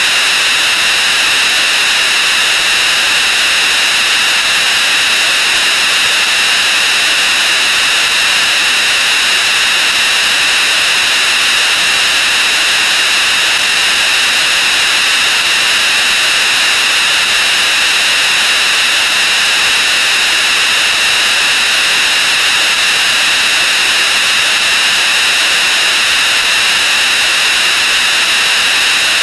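Many sound effects layered on top of one another and sped up 64 times, blurred into a loud, steady, hissing wall of noise in which no single sound stands out.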